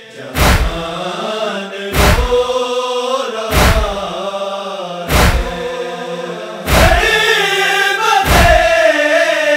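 Male noha reciters chanting an Urdu lament together, with a heavy matam (chest-beating) thump about every 1.6 seconds marking the beat. About seven seconds in the voices get louder and higher.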